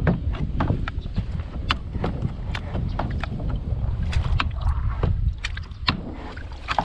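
Irregular clicks and knocks from a kayak's pedal drive as its pedals are worked back and forth by hand, the drive fouled by a hooked fish wrapped around it. Low wind rumble on the microphone runs underneath.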